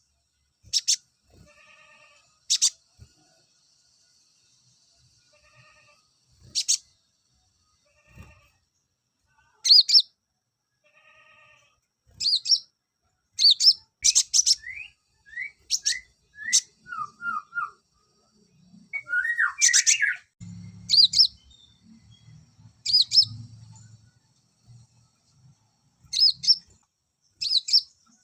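Male olive-backed sunbird giving sharp, high call notes at irregular intervals, with a quick run of short falling chirps about halfway through. A low buzz sits underneath for a few seconds about two-thirds of the way in.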